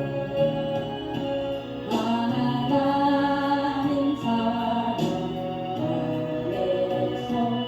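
A slow Christian gospel song: voices sing long held notes over accompaniment, the pitch changing about once a second.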